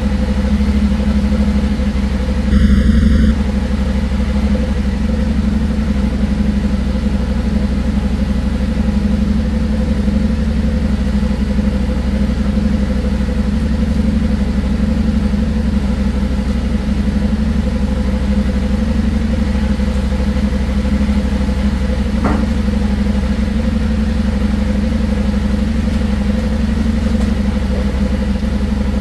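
Yamaha Ténéré 700's parallel-twin engine idling steadily as it warms up from a cold start. A brief louder burst comes about three seconds in.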